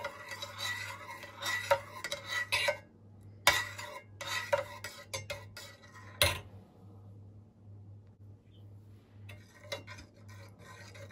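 A spoon stirring and scraping a thick mix of grape molasses, melting butter and black pepper in a pan, with clinks against the pan. There is a sharp knock a little past halfway, then the stirring goes quieter and picks up faintly near the end.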